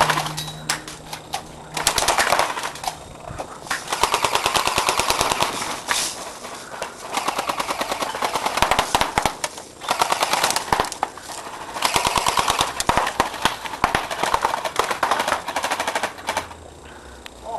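Airsoft gun firing on full auto in a string of rapid bursts, each about one to two seconds long, with short pauses between them.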